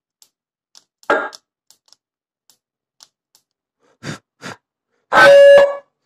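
Elena Smerch police siren unit sounding through its two horn loudspeakers, very loud: a short blip about a second in, two quick blips around four seconds, then a loud steady horn blast of under a second near the end. Faint clicks of the control panel's buttons come between.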